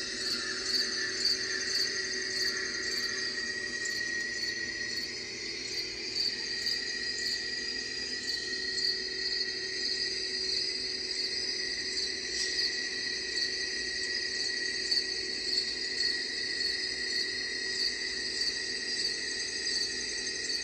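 Crickets chirping in a steady, dense chorus of high trills.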